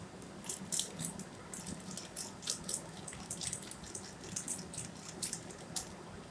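Foil spice sachet crinkling and rustling as masala powder is shaken out of it over raw chicken pieces, heard as a string of short crackles, over a low steady hum.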